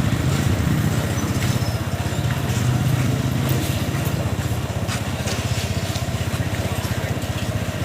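A small engine running steadily, with a rapid, even pulse.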